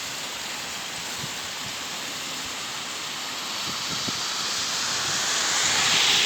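Steady rushing hiss of a fast mountain torrent and wind. The noise swells over the second half and is loudest just before the end.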